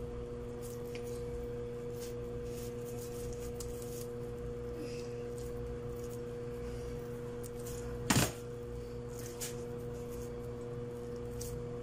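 Hands working raw ground meat for small meatballs, with faint soft clicks and squelches over a steady electrical hum. About eight seconds in comes one sharp ringing clink, against the glass mixing bowl.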